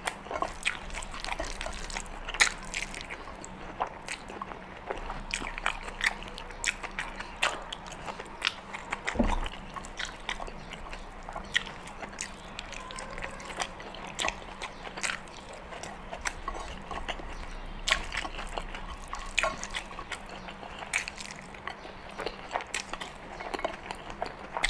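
A person chewing and biting meat and rice, with irregular wet clicks and lip smacks.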